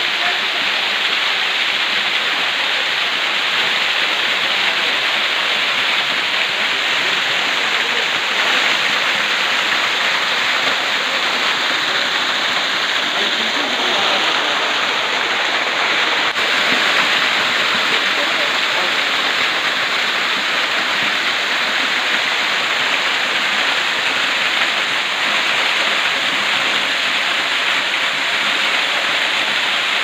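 A small waterfall pouring through a narrow rock opening into a cave and splashing onto the rocks below: a steady, even rush of falling water.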